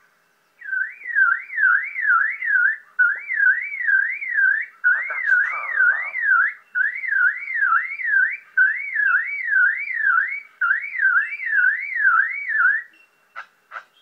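A person whistling a siren-like warble that rises and falls about two and a half times a second, in runs of about five sweeps with short breaks, in imitation of a car alarm as a lyrebird mimics one. A few clicks follow near the end.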